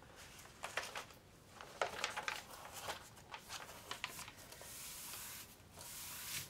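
Crinkling of a diamond painting canvas and its plastic cover film as it is handled, a run of short crackles. Near the end this gives way to a steadier hiss of hands sliding over the film to flatten it.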